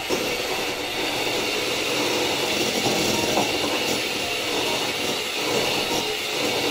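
A small electric mixer running steadily, whipping shampoo into lather. It starts abruptly and keeps an even, loud whir.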